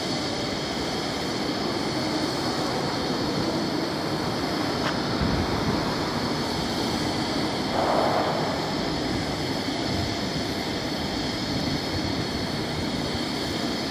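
Peppercorn A1 Pacific steam locomotive 60163 Tornado standing with steam hissing steadily. A brief louder sound comes about eight seconds in.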